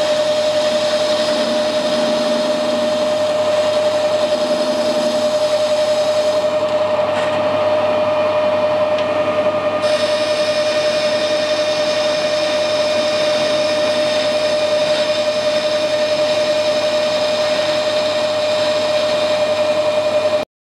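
Metal lathe running with a steady whine while an indexable-insert turning tool takes a cut along a metal bar toward a shoulder; the bar is a poor-machining material. The sound cuts off abruptly just before the end.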